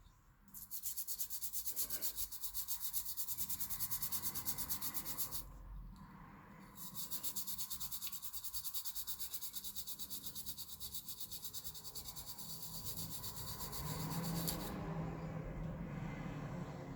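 Toothbrush scrubbing an electronic circuit board in rapid back-and-forth strokes, about five a second, to clean corrosion off it. The scrubbing pauses briefly about five seconds in, then carries on.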